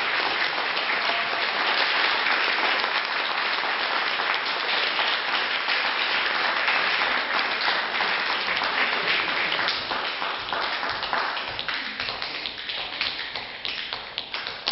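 Audience applauding, thinning out to scattered claps and fading over the last few seconds.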